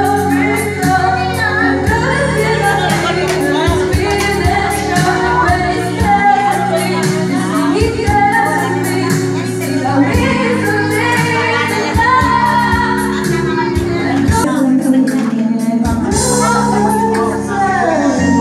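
Music with a voice singing over a steady beat.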